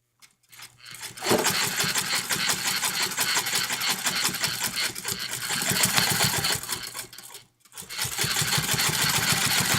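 1957 Toyota Marvel De Luxe heavy-duty electric sewing machine running at speed, its needle stitching through four layers of thick fleece with a rapid, even stitch rhythm. It starts about a second in, stops briefly near the end, then starts again.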